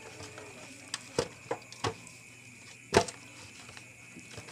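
Scattered light clicks and knocks from kitchen handling, with one sharper knock about three seconds in.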